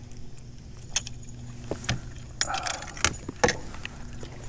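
Handling of fishing gear in a kayak: several sharp knocks and metallic clinks, the loudest two close together past the middle, over a steady low hum.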